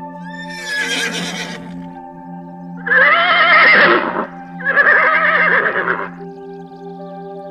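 Horse whinnying three times: a shorter call with a falling pitch about half a second in, then two longer, louder, quavering neighs at about three and about four and a half seconds in. A steady ambient music bed plays underneath.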